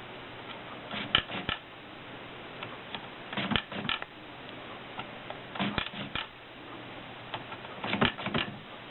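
Erika 5 portable typewriter's mechanism clacking in four short bursts of a few sharp clicks each, about two seconds apart.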